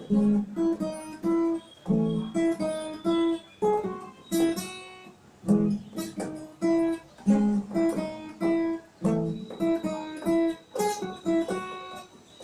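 Acoustic guitar playing a plucked and strummed instrumental introduction, single notes and chords rising and dying away in a loose rhythm.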